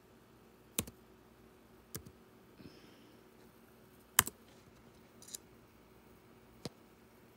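Laptop being operated: five isolated sharp clicks spread over several seconds, the one about four seconds in the loudest, over a faint steady hum.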